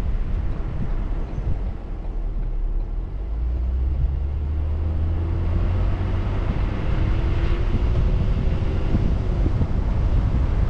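A car driving, with steady low road rumble and wind noise on the microphone. A faint engine or tyre tone rises slowly through the middle and drops away near the end.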